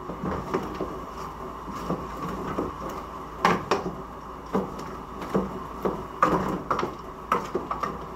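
A spoon stirring chicken feet in a large aluminium pot, scraping and knocking against the pot at irregular intervals, with louder knocks from about three and a half seconds in.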